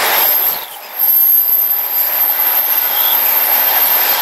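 Container freight wagons rolling past over a steel truss railway bridge: a steady rushing noise with a short dip about a second in.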